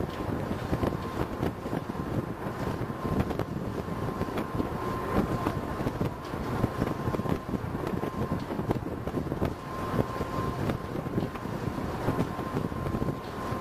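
Wind buffeting the microphone over the steady rumble of a boat under way on open water, with a thin steady high tone throughout.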